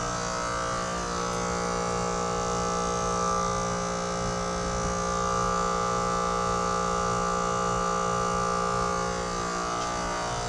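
Trane XR14 heat pump outdoor unit running in its defrost cycle: a steady compressor hum with several held whining tones, one of them swelling and fading.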